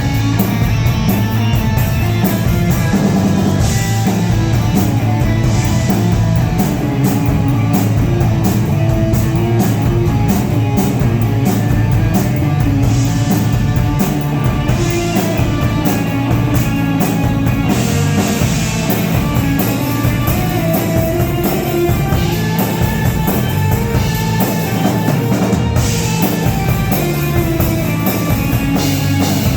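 Live rock band playing at full volume, with a drum kit keeping a fast steady beat under distorted electric guitar and bass.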